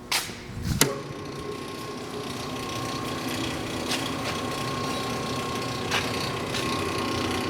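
Gensco CSX 2010 three-phase power wire stripper switched on, with two sharp clicks and a low thump in the first second, then running steadily with a high whine over a gear hum and the odd faint click. It is quiet and runs well.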